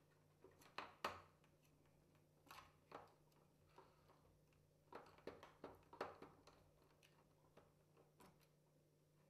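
Faint scattered clicks and taps of a screwdriver working the screws out of an HP DV9000 laptop's display hinges, over a low steady hum.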